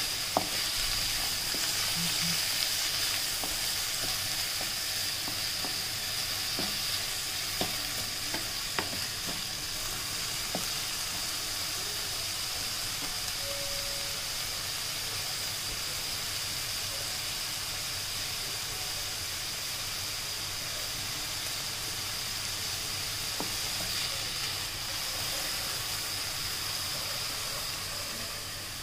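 Sliced green capsicum and garlic sizzling in hot oil in a nonstick pan. A wooden spatula stirs and knocks lightly against the pan a few times in the first ten seconds, then the steady sizzle carries on alone.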